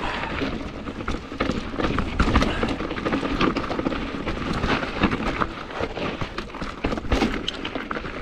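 Mountain bike rattling over rough rock on a steep descent: tyres rumbling and the bike clattering, with many sharp knocks throughout.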